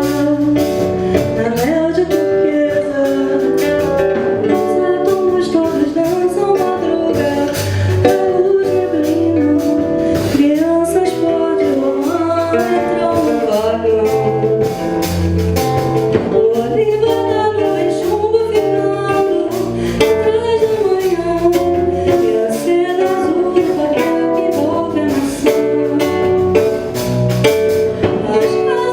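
A woman singing an MPB song, backed by nylon-string acoustic guitar, bass guitar and a drum kit playing a steady beat.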